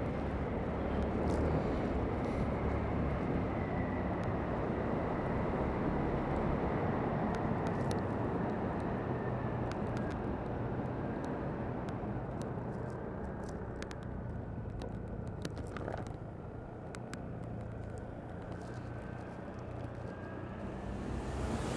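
Motor scooter being ridden, heard from the rider's microphone: a steady rush of engine and wind noise with a faint high whine that drifts slowly in pitch. It eases off slightly about two-thirds of the way through.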